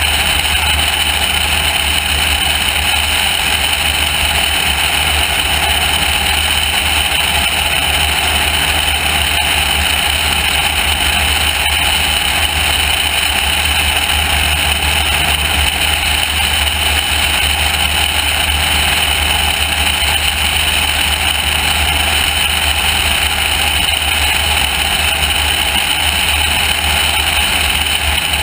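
Light single-engine airplane in cruise flight: the steady drone of its piston engine under loud, even wind rush on a camera mounted outside the aircraft.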